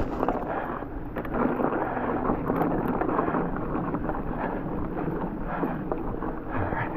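Mountain bike rolling over a frozen, snowy trail: steady tyre noise with small knocks and rattles from the bike over bumps, and wind on the microphone.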